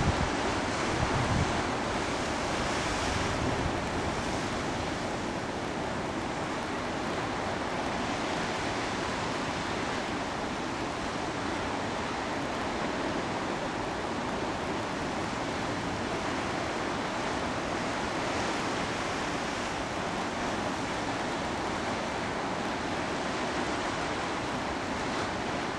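Steady wash of Tasman Sea surf breaking on a rocky coast, with wind buffeting the microphone in a few low thumps in the first second or two.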